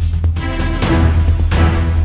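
Background music with a steady beat, a heavy bass and sustained chords, swelling about halfway through.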